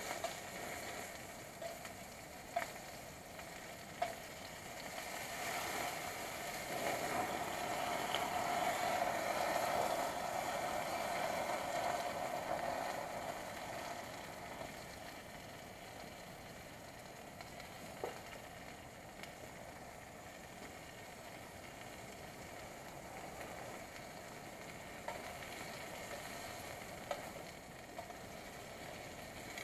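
Food sizzling in a small pan held over a wood campfire, a steady hiss that swells for several seconds in the first half, with a few sharp clicks and crackles.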